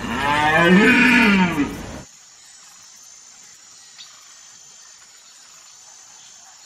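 A deer calling: a loud, drawn-out call that rises and falls in pitch and breaks off about two seconds in.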